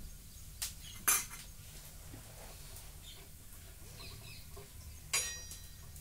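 Steel ladle clanking against a metal cooking pan on a gas stove as the mutton is stirred: a few sharp metallic knocks, the loudest about a second in, and another near the end that rings briefly.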